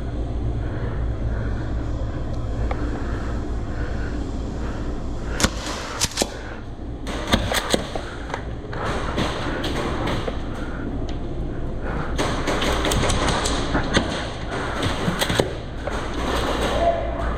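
Airsoft guns firing during a game: a few separate sharp pops, then clusters of rapid shots in the second half, over a steady low rumble of wind and handling noise on the microphone.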